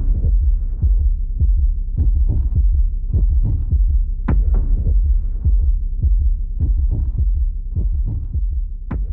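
Deep throbbing pulse like a heartbeat, about two beats a second, over a steady low drone, with a few sharper hits: a background score laid under the signing.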